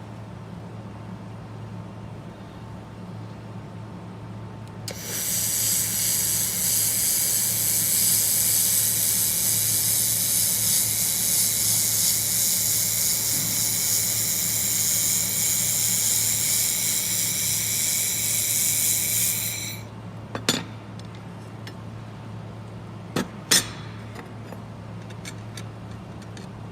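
Handheld fiber laser welder running a weld on flat stainless steel: a loud, steady high hiss starts about five seconds in, lasts about fifteen seconds and cuts off, over the machine's steady low hum. After it, a few sharp metallic clinks.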